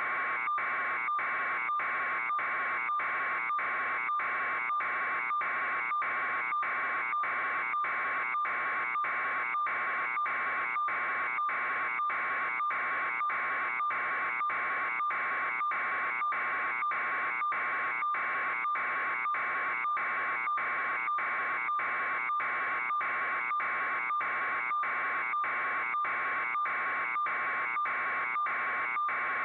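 A steady electronic buzz, pulsing evenly about twice a second without a break, alarm-like in character.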